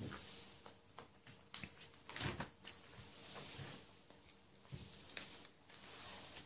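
Plastic card-sleeve pages of a ring binder being turned by hand: soft rustling and crinkling of the sleeves with small clicks, loudest about two seconds in.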